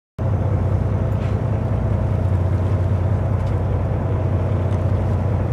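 Fishing boat's engine running, a steady low drone that cuts in abruptly just after the start.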